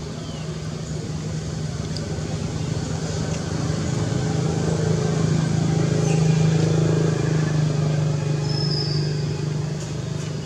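A motor vehicle's engine, a steady low hum that grows louder to a peak about six to seven seconds in and then eases off.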